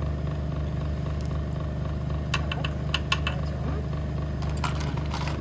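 Jewelry tumbling machine running with a steady low hum, and small metal pieces clicking against each other in short clusters about two to three seconds in and again near the end.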